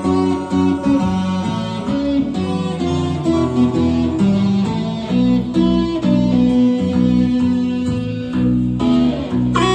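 Chapman Stick played live: tapped bass and melody notes in a busy, shifting pattern, sounding like guitar and bass together. A long held note comes in right at the end.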